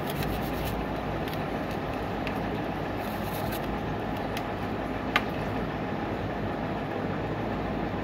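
Steady rumbling background noise with one sharp click about five seconds in.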